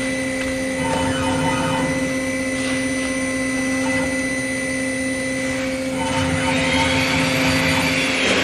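CNC router spindle running with a steady high whine. About six seconds in, a louder rushing hiss joins it.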